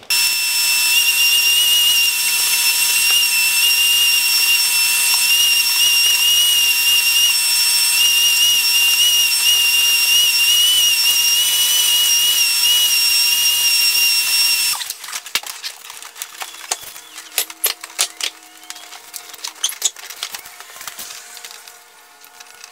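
RIDGID wet/dry shop vacuum running with a steady high whine and hiss as it sucks out a car's footwell, then switched off about 15 seconds in. Scattered light clicks and knocks follow.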